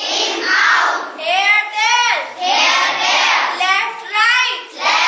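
A child's voice reading English word pairs aloud from a chalkboard in a sing-song chant, about one word a second.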